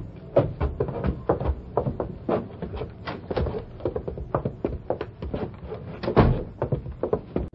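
Radio sound effects of footsteps on wooden boards and a door being opened: a run of irregular knocks, a few a second, with a louder thump about six seconds in.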